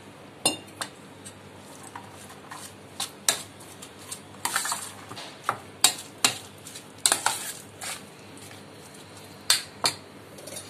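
Steel spoon stirring and scraping cooked rice and milk in a stainless steel bowl, with irregular clinks of the spoon against the bowl.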